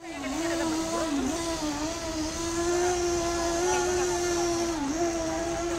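Small electric motor of a toy motorboat whining at a steady high pitch, dipping briefly in pitch a few times, with a fainter second whine wavering above it.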